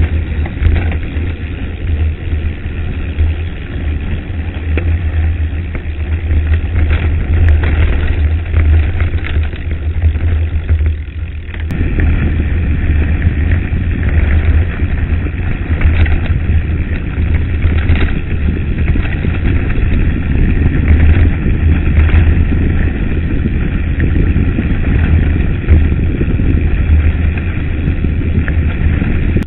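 Wind buffeting the microphone of a camera on a mountain bike rolling fast down a gravel road, with the tyres crunching and the bike rattling over stones. The noise dips briefly just before twelve seconds in, then comes back louder.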